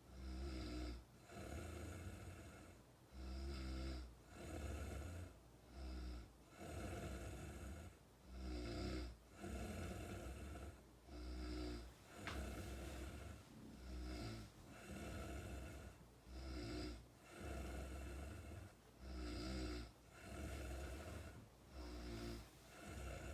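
A person snoring, one snore every second or so in a steady rhythm, each with a deep rumble. A short click sounds about halfway through.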